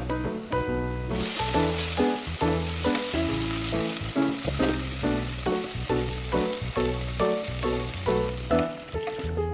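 Food sizzling in hot oil in a frying pan. The sizzle starts suddenly about a second in and runs under background music with a steady beat.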